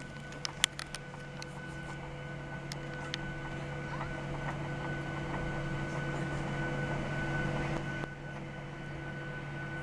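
Boeing 737-700's CFM56 jet engines running, heard inside the cabin as a steady hum with several whining tones. It grows slowly louder over the first seven or eight seconds, then drops a little. A few sharp clicks come in the first second.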